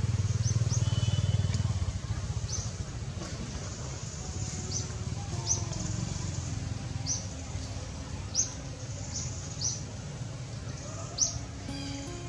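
A bird repeatedly giving short high chirps, about one a second. A low rumble fills the first two seconds, and soft background music notes come in from about four seconds.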